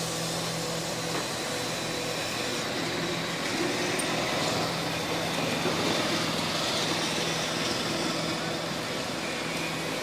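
SANY mobile crane's diesel engine running steadily with a low hum while its telescopic boom is lowered hydraulically.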